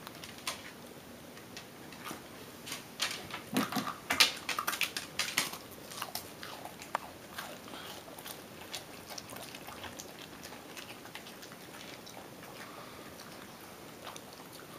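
Dandie Dinmont terrier chewing and crunching food, a quick run of crisp crunches a few seconds in, then slower, fainter chewing clicks.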